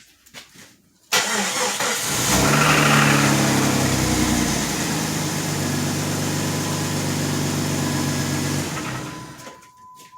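A vehicle's engine starting abruptly about a second in and running steadily for about seven seconds, then switched off and dying away. A steady high beep sounds as it stops.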